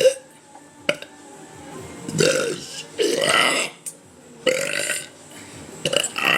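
A young woman burping, about four burps in a row, each lasting around half a second.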